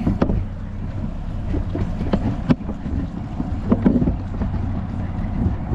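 Outboard engine of a Pursuit C 238 center-console boat running steadily at low cruising speed, with wind buffeting the microphone and a few sharp thumps about a quarter second, two and a half seconds and nearly four seconds in.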